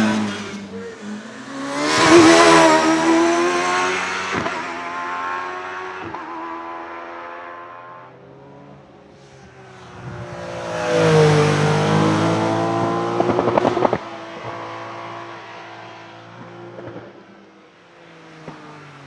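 Single-seater hillclimb race car engine at high revs, passing loudly twice, about two seconds in and again about eleven seconds in. The pitch climbs and falls with gear changes and the car's approach and departure, and the sound cuts off abruptly about two-thirds of the way through.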